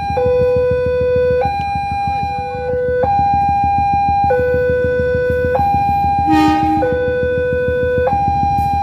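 Railway level-crossing warning alarm sounding a two-tone electronic signal that alternates between a low and a higher note about every second and a quarter, warning that a train is approaching. Underneath is a low rumble, and a short horn blast sounds about six seconds in.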